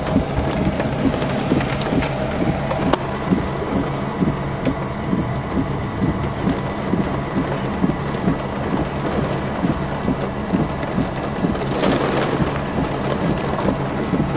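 Heavy thunderstorm rain and wind pelting a car, heard from inside the cabin: many small sharp hits over a steady low rumble. The storm is the one producing a rain-wrapped tornado.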